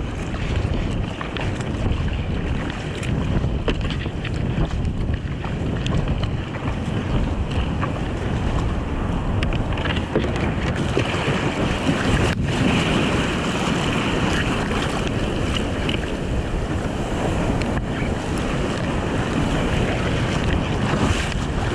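Strong wind buffeting the microphone, over the wash of sea water and waves around a kayak at sea.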